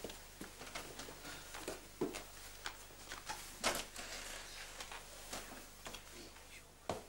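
Scattered soft taps, knocks and rustles of people moving about a room, such as footsteps and clothing, coming at irregular intervals about a second apart.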